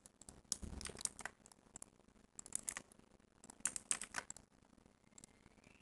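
Faint computer keyboard typing: three short runs of keystrokes.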